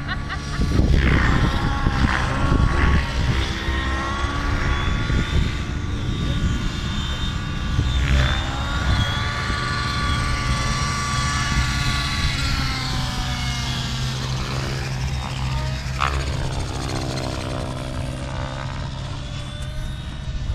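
Engine of a radio-controlled model aircraft flying overhead, its whine rising and falling in pitch as it passes and changes throttle, over a steady low hum.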